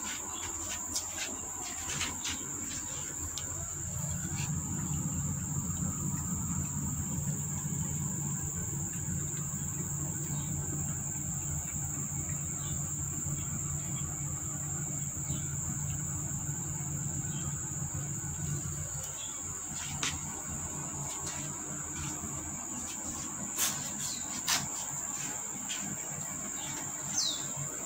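Steady high-pitched insect drone, with a low hum rising in the middle and fading out after about nineteen seconds, a few sharp clicks, and one short falling chirp near the end.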